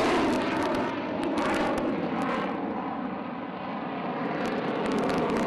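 F-16 fighter jet's engine noise as the jet flies its display overhead, easing off somewhat in the middle and building again near the end.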